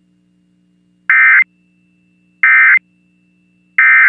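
Emergency Alert System End-of-Message tones: three short bursts of warbling digital data (the SAME "NNNN" code), evenly spaced about a second and a third apart. They mark the end of the test message. A faint steady hum runs underneath.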